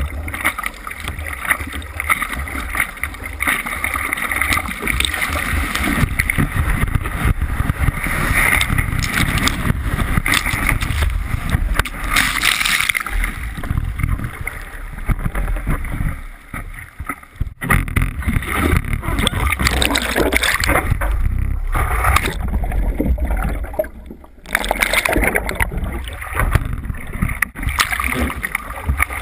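Sea water rushing and splashing around a surfboard, heard through a board-mounted GoPro camera, with a rumble of wind and water on the microphone. The noise dips briefly twice, about halfway and near the end.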